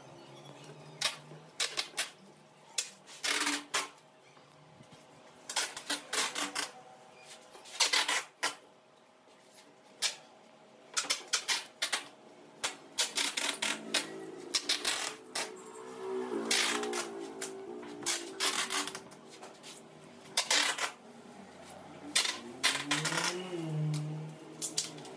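Irregular sharp knocks, taps and clicks of wood being handled and worked by hand, some in quick runs, over quiet background music.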